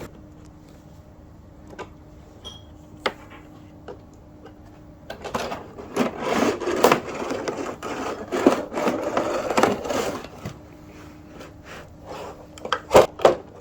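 Toy packaging being opened and handled: scattered taps and clicks, with several seconds of rustling and scraping in the middle and a few sharper clicks near the end.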